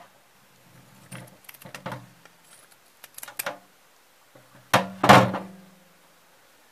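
Scissors snipping and a plastic liquid-sauce sachet crinkling in the hand in short bursts, then two loud knocks close together near the end, with a short low ring, as the scissors are set down on the glass surface.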